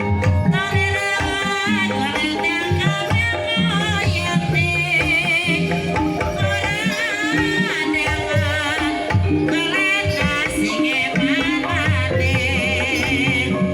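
Banyumasan gamelan music for an ebeg dance: steady metallophone tones with hand-drum strokes under a singer's wavering, ornamented melody.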